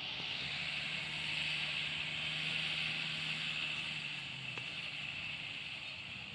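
Engine of a heavy machine running steadily at a distance, a low hum that fades out about four seconds in, under a steady high-pitched hiss.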